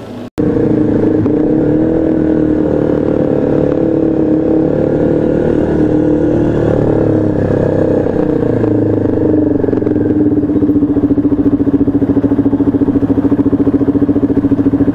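Motorcycle engine running steadily while riding; its pitch eases down slightly about eight seconds in, and in the last few seconds it runs with an even, rapid pulsing.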